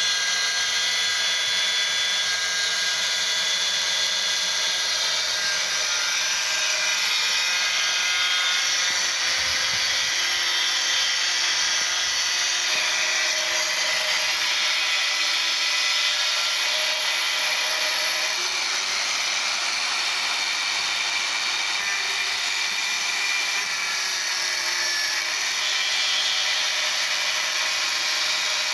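Handheld angle grinder with an abrasive cut-off disc cutting through rusty steel angle iron: a steady, loud high whine with a grinding hiss, running without a break.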